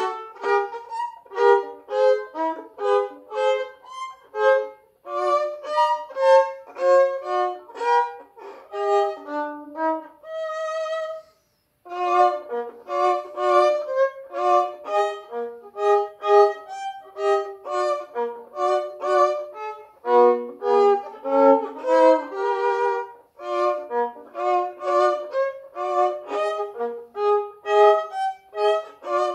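Solo violin, bowed, playing a lively melody of short, separate notes, with one longer held note about ten seconds in followed by a brief pause before the tune resumes.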